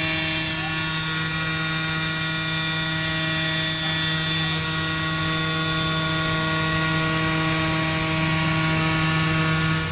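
A machine running with a steady, unchanging hum made of one low pitch and its overtones.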